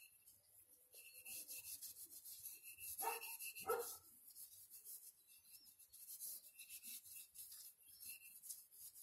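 Cloth and gloved hands rubbing wood stain into a wooden rifle handguard in quick repeated strokes, with a faint squeak on and off. Two short louder sounds come about three seconds in.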